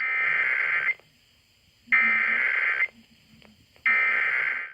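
Emergency Alert System SAME header: three bursts of high, buzzing digital data tones, each just under a second long, with about a second of quiet between them. This is the coded header that opens an EAS alert, here for the National Periodic Test.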